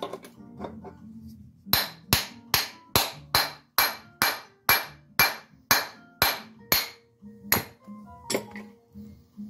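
Hammer tapping on a metal motorcycle hub part: about fourteen sharp, ringing blows, evenly spaced at roughly two and a half a second, starting about two seconds in, with a last weaker tap near the end.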